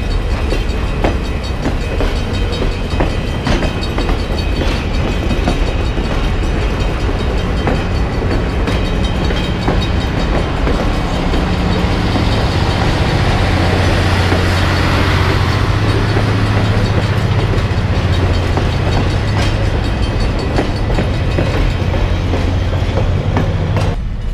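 Escanaba & Lake Superior passenger train rolling past close by, its wheels clicking over the rail joints, with a deep steady hum that swells about halfway through.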